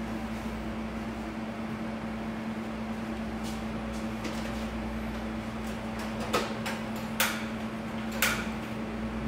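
Steady hiss and hum of a portable gas stove burning under a saucepan of milk. In the second half come a few sharp clicks and knocks, the loudest three about a second apart.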